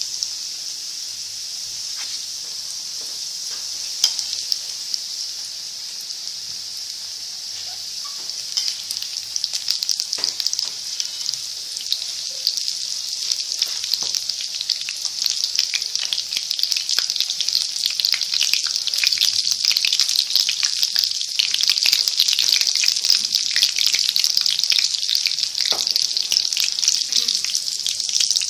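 Onion pakoras deep-frying in hot oil in a wok: a steady sizzle full of fine crackling, growing louder and busier after about nine seconds, with a few soft knocks.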